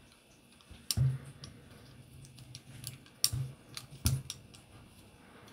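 Light metal clicks and taps from a Beretta 92FS trigger bar being wiggled in the pistol frame as it is worked loose. It is stuck and won't come free easily. The sharpest clicks fall about one, three and four seconds in.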